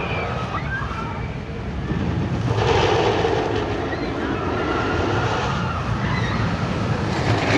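Theme-park background noise: a steady mix of distant voices and mechanical rumble, swelling louder about two and a half seconds in.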